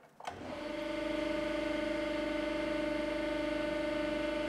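Hydraulic pump of a 300-ton hydraulic press switching on with a click and building within about a second to a steady hum as the ram advances, not yet under load.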